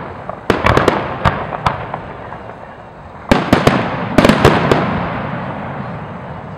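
Aerial firework shells bursting in two quick volleys of sharp bangs about three seconds apart, each volley trailing off in a fading rumble.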